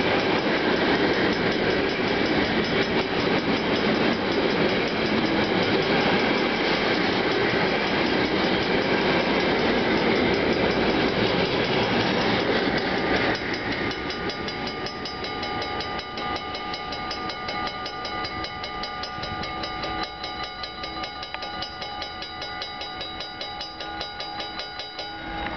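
Container flat wagons of an intermodal freight train rolling past at close range, wheels running on the rails, until the last wagon passes about halfway through. Then the level crossing's warning bell keeps ringing on its own, its red light still lit.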